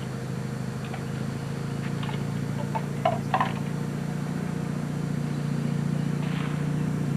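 A steady low mechanical hum, slowly growing a little louder, with a few short faint taps or clicks about three seconds in.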